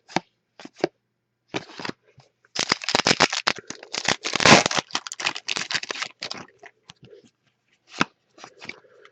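Trading card pack wrapper crinkling and tearing as a pack is opened, with cards sliding and clicking against each other. The crinkling is densest from about two and a half to six and a half seconds in, with scattered clicks before and after.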